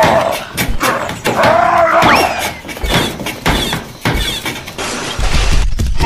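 A rapid run of sharp knocks and clatters with a breaking, shattering crash, and a short growling cry about two seconds in; a low rumble comes in near the end.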